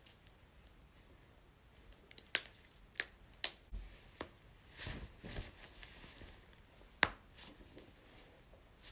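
A person's joints cracking: about five sharp, separate pops spread over several seconds, the loudest about seven seconds in, with some soft rubbing noise between them.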